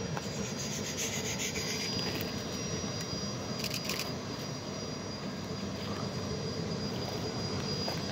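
Distant Shay geared steam locomotive working, its exhaust beat heard as a steady rush.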